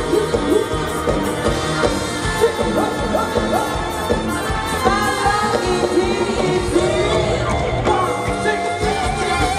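Live Thai ramwong band music with a steady beat and a singer's voice, the singing wavering in pitch and stronger in the second half.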